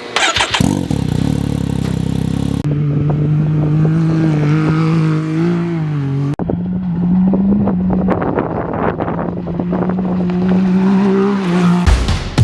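Can-Am X3 side-by-side's engine running through an aftermarket side exhaust at a steady pace, in several short clips cut together. Music with heavy beats comes in near the end.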